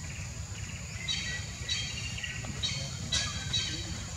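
Outdoor ambience: a steady low rumble and a thin high steady whine, with short high-pitched chirping calls about five times.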